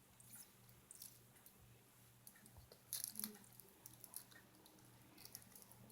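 Near silence with a few faint soft clicks and taps, a small cluster about three seconds in, from a kitten playing.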